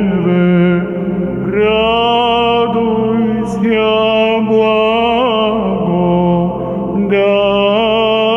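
Byzantine chant in the sixth tone, sung in Church Slavonic: a voice carries long melismatic phrases with small ornamental pitch turns, breaking between phrases a few times.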